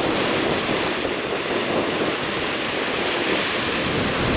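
Steady rushing noise of wind buffeting the microphone over rough surf and breaking waves.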